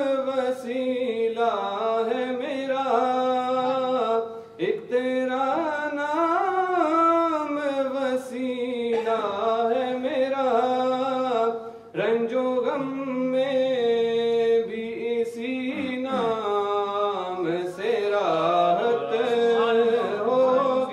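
A solo male voice sings an Urdu naat unaccompanied, in long ornamented phrases that glide between held notes. There are short breaks for breath about four and a half and twelve seconds in.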